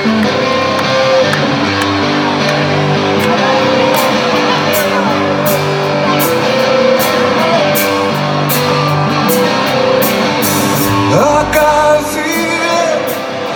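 Live rock band playing through a stadium PA, with electric guitars and bass holding chords. The drummer's cymbals come in about four seconds in, struck about twice a second, and a man's voice sings near the end.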